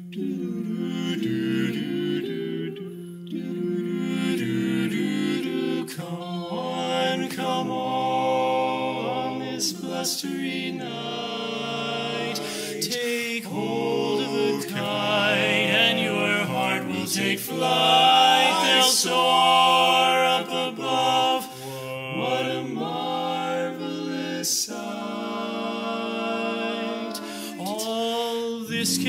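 Barbershop quartet of four male voices (tenor, lead, baritone and bass) singing a cappella in close four-part harmony, moving through held chords.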